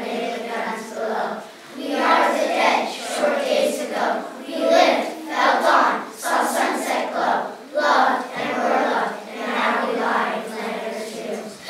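Children's choir singing together in held, phrased lines.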